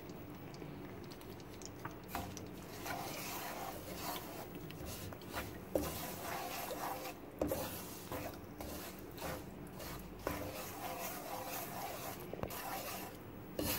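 Wooden spatula stirring semolina in hot ghee in a non-stick kadhai: repeated gritty scraping strokes about once a second, starting about two seconds in, with a few sharp clicks of the spatula against the pan.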